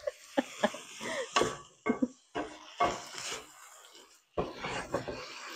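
Wooden spoon stirring chicken and vegetables in a skillet: irregular scrapes and knocks against the pan over a light sizzle, with a short pause about four seconds in.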